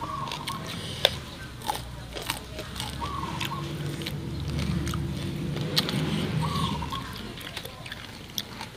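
Close-up eating sounds: chewing and crunching of Thai fish-sauce fried pork, with sharp irregular crunchy clicks. A short chirp repeats about every three seconds, and a low rumble swells and fades in the middle.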